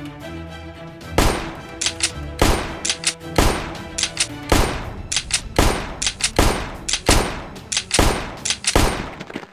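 Background music, then from about a second in a long run of loud gunshot sound effects, roughly two shots a second, over the music.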